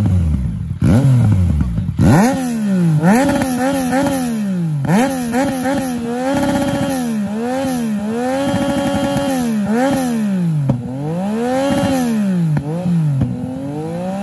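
Yamaha MT-09 inline three-cylinder engine through an Akrapovic Racing Line titanium full exhaust, revving up and dropping back again and again, with a few longer held notes in between.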